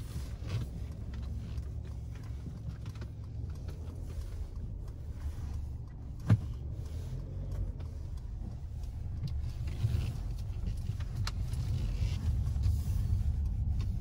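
Car driving slowly, heard from inside the cabin: a steady low engine and road rumble, with a single sharp click about six seconds in.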